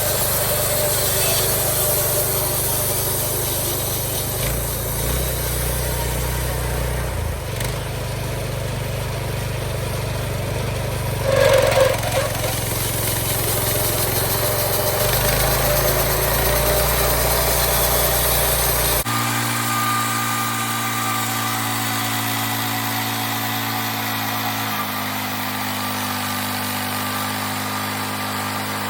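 Homemade bandsaw mill's engine running steadily, its speed stepping up and down a few times. There is a brief louder knock or clank near the middle, and an abrupt change in the engine's note about two-thirds of the way through.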